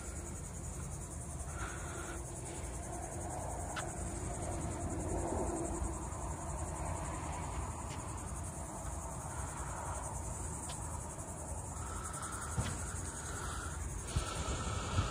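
Insects droning steadily at a high pitch, with a low rumble underneath.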